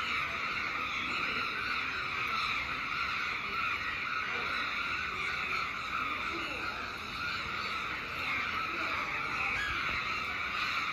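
Many crows cawing at once, their calls overlapping into a steady, continuous din.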